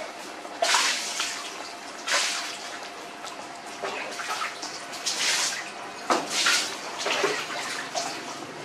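Litter of puppies suckling at their mother's teats: wet slurping and smacking that comes and goes every second or two.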